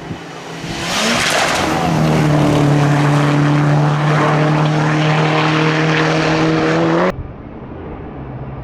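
Rally car engine held at high revs, growing louder about a second in and holding a steady, slightly rising note, then cut off abruptly about seven seconds in.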